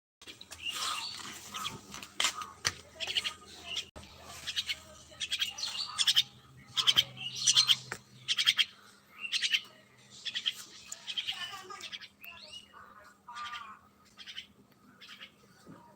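Common myna calling: a rapid run of varied short chattering calls and whistled notes, a few gliding downward, growing quieter in the last few seconds.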